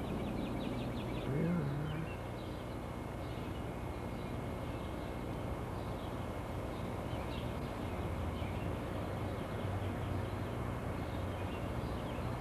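Birds chirping at dawn in short trilled bursts that come and go, over a steady low rumble of outdoor background noise, with one brief low sliding sound about a second and a half in.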